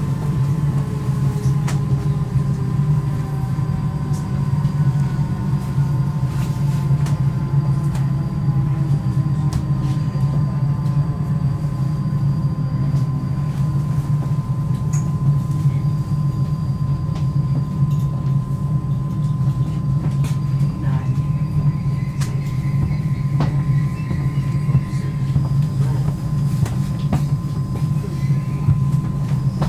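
Inside a Stockholm commuter train carriage: the electric motors' whine falls slowly in pitch over the first dozen seconds as the train brakes into an underground station. It then settles into a steady low hum with a constant tone while the train stands at the platform.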